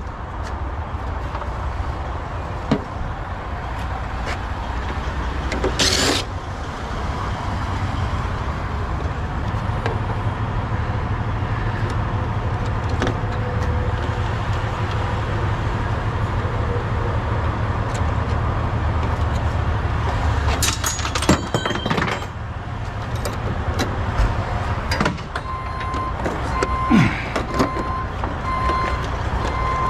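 A heavy vehicle's engine running with a steady low rumble, heaviest through the middle and easing after about 21 seconds, with a few sharp metallic clatters. From about 25 seconds in, a reversing alarm beeps at an even pace.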